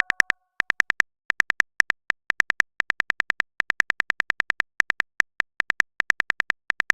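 Simulated phone-keyboard typing clicks from a texting app: rapid, uneven taps, several a second, broken by short pauses.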